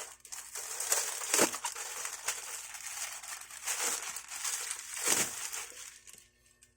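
Plastic bubble wrap crinkling and crackling as it is handled and pulled off a package, in irregular bursts that die away near the end.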